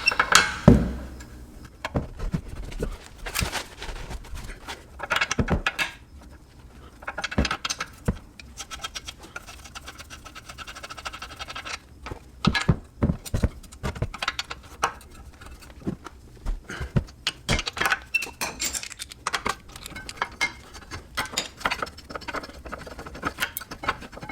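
A socket wrench working two 17 mm brake caliper bracket bolts loose on a car's rear hub, with irregular metallic clicks and clinks of tool on metal and bolts being handled.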